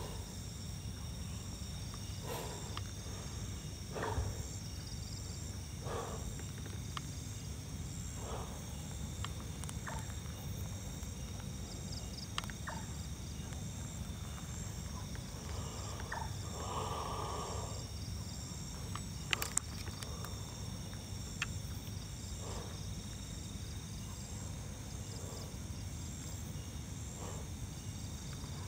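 Night insect chorus: a steady, high-pitched trilling of crickets with a faint low rumble under it. Slow footsteps on dry dirt come every couple of seconds, and a longer soft sound comes a little past the middle.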